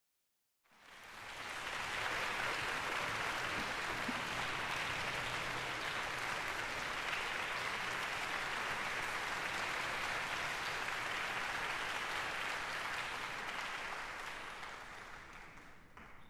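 Concert hall audience applauding, greeting the soloists before the piece begins. The clapping swells in within the first two seconds, holds steady, then dies away near the end.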